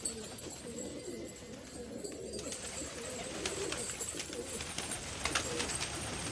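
A flock of domestic pigeons cooing, with wing flapping and clatter coming in from about halfway as birds take off.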